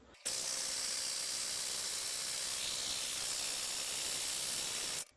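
Steady hiss of air coming out of the rebuilt Yamaha GP HO engine while it is cranked on the starter to prime its oil system. The hiss starts and stops abruptly.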